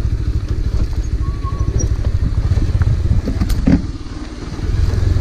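Motorcycle engine running while riding, a steady low rumble that eases off briefly about four seconds in, then picks up again.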